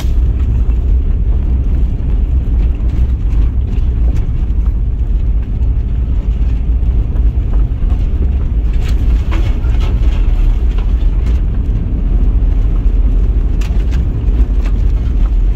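Car cabin noise while driving slowly on a rough dirt forest track: a steady low rumble of engine and tyres, with a few knocks and rattles in the second half.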